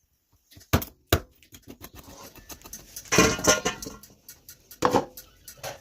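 Kitchen work on raw chicken feet: a few sharp knocks and clacks, with a louder stretch of rubbing noise about three seconds in.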